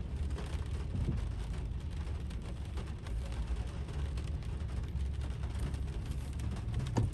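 Raindrops ticking on the windshield and roof of a Toyota Corolla GLi 1.3, heard from inside the cabin over the steady low hum of its idling four-cylinder engine. One louder knock comes near the end.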